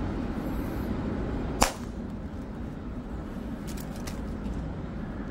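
Plastic gashapon capsule snapping open with one sharp pop about a second and a half in, followed by a few faint clicks of the plastic being handled, over steady low background noise.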